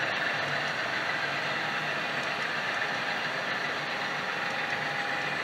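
HO-scale model double-stack container train rolling past on its track, a steady whir of wheels on rails and running gear.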